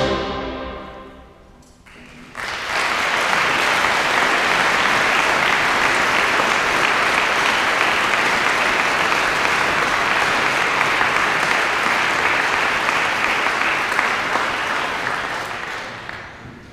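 A brass band's final chord dying away in a reverberant church hall, then an audience applauding, starting about two seconds in, holding steady, and fading near the end.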